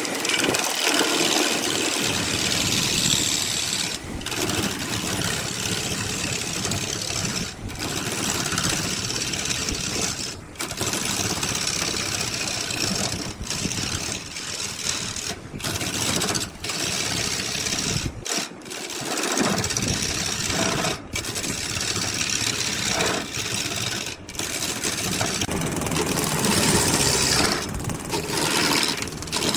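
Wood lathe running while a turning tool cuts into a spinning square wooden block, roughing it down toward a cylinder: a dense, rough cutting noise with several brief breaks where the tool lifts off.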